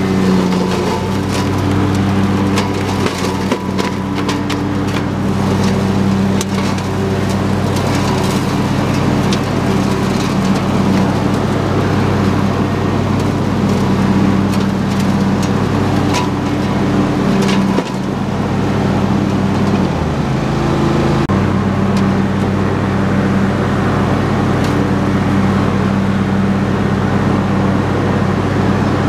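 Husqvarna YTH22V46 lawn tractor's V-twin engine running steadily under load as its mower deck cuts brush. Repeated sharp cracks and snaps of sticks and debris hit by the blades come mostly in the first two-thirds. The engine note dips briefly about two-thirds of the way through.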